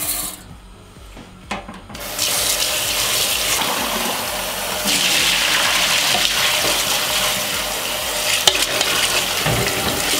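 Rice being rinsed in a stainless-steel sink. After a quieter start, water runs and splashes steadily from about two seconds in, as the rinse water is poured off through a metal sieve and the tap refills the pot. There is one sharp click near the end.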